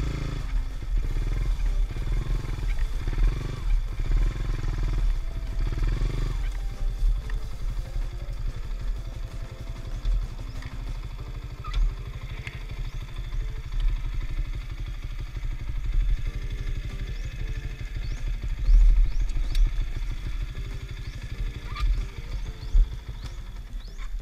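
Yamaha Sniper 150's single-cylinder four-stroke engine running while the bike is ridden over grass, with wind on the microphone. The revs rise and fall through the first six seconds, then the engine settles to a steadier, lower running, with a few short knocks later. Background music plays faintly underneath.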